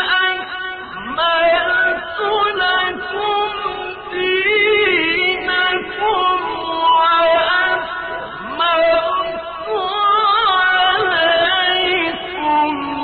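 A man's voice reciting the Quran as a slow melodic chant (tajweed), holding long, wavering, ornamented notes with short breaths between phrases.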